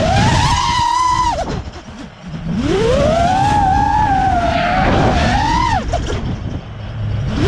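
Brushless motors and propellers of an FPV freestyle quadcopter whining, heard from the GoPro on the quad, their pitch following the throttle. The whine rises and holds, falls away almost to nothing about two seconds in as the throttle is cut for a flip, then climbs again and holds with a quick surge near the end before rising once more.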